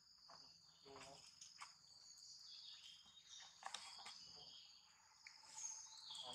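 Faint, steady high-pitched chirring of forest insects, with a few faint clicks.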